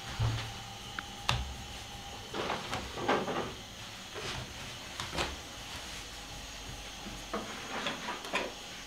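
Irregular knocks and short scraping sounds of yufka dough being cut and handled on a work bench, over a steady background hum.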